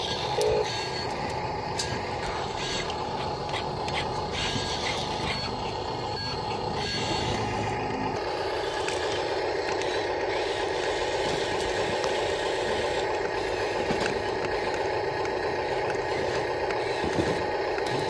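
Radio-controlled model truck driving, with a steady mechanical running sound.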